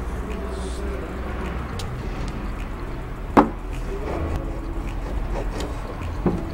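Food and cutlery being handled on a plate while eating: one sharp knock about halfway through and a lighter one near the end, over a steady low hum.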